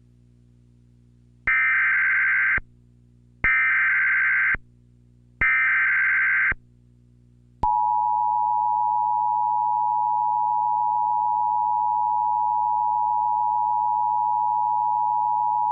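Emergency Alert System tones: three bursts of SAME header data tones, each about a second long, then the steady two-tone EAS attention signal for about eight seconds. The tones announce a National Weather Service severe thunderstorm warning.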